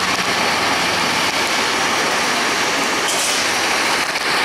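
Steady running noise of a transit bus standing at the curb, with a brief hiss about three seconds in.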